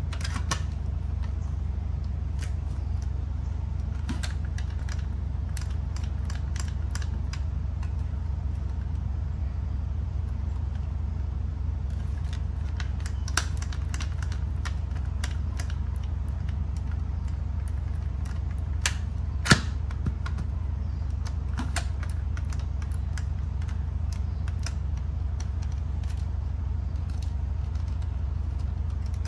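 Scattered plastic clicks and rattles from a Dyson V10 stick vacuum's clear bin as its red release lever and lid catch are pressed and worked by hand, the bin stuck shut and not opening. There is one sharper knock about two-thirds of the way through, over a steady low hum.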